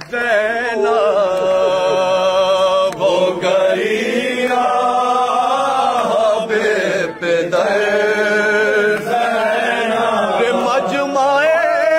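A man chanting an Urdu noha, a Shia mourning lament, unaccompanied, in long held notes with a wavering pitch, phrase after phrase with brief breaths between.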